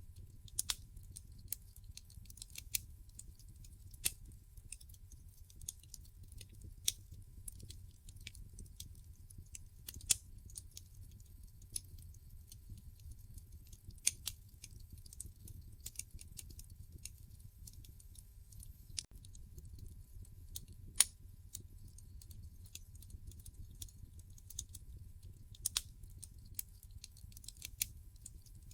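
Wood fire in a fireplace crackling, with irregular sharp pops over a low steady rumble.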